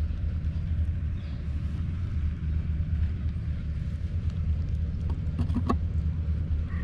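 Steady low outdoor rumble, with a short run of clicks about five seconds in while a kitten eats wet cat food from a plastic tub.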